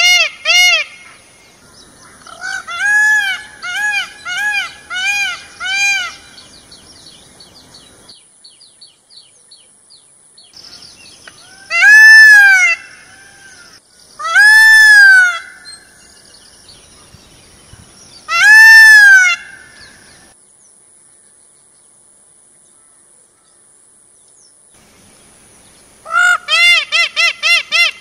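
Indian peafowl calling: quick runs of short, honking notes, then three long, loud calls a few seconds apart, and after a quiet stretch another quick run of short notes near the end.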